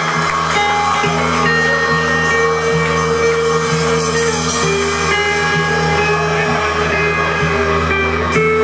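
Live rock band playing electric guitars and drum kit, loud and even, with long held guitar notes.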